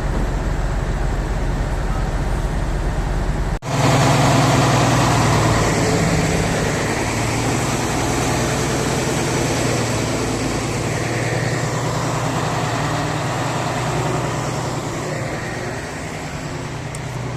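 Heavy diesel truck engine running steadily. About three and a half seconds in the sound cuts out for an instant, then comes back louder and fuller, with a deeper, busier engine note.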